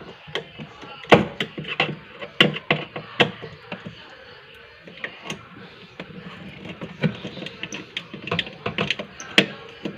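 Irregular clicks and taps from a screwdriver working screws out of a refrigerator's plastic freezer compartment.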